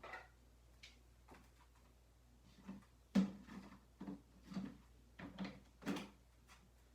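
Faint knocks and thumps: a sharp one about three seconds in, then five or six more in quick succession over the next three seconds.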